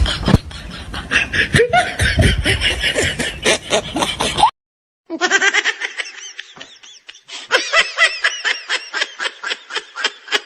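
Laughter sound effects: a burst of rapid laughing that cuts off abruptly about four and a half seconds in, then, after a brief silence, a second laughing clip of quick repeated ha-ha pulses.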